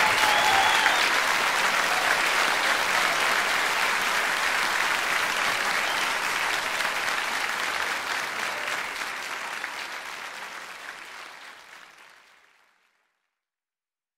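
Audience applauding as the last of the choral music dies away in the first second; the applause then fades out and ends about twelve seconds in.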